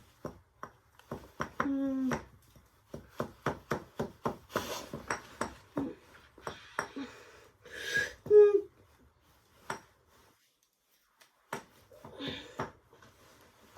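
Irregular clatter of sharp clinks and knocks from hard objects striking, coming in quick scattered hits with a quiet pause a little past ten seconds in. Two short voiced sounds stand out, about two seconds and about eight seconds in.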